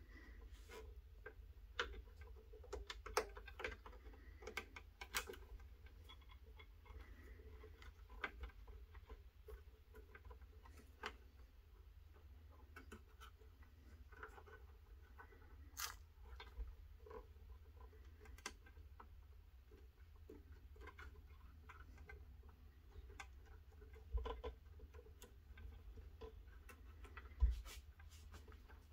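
Irregular light clicks and taps of hands working flexible hoses onto the small metal fittings of a scale-model excavator's hydraulic boom, over a steady low hum.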